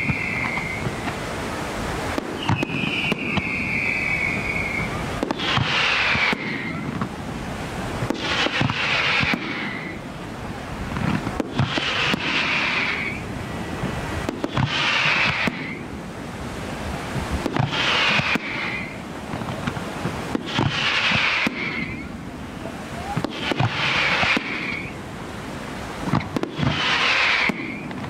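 Fireworks display firing continuously: a dense run of bangs and crackling, with a falling whistle about every three seconds.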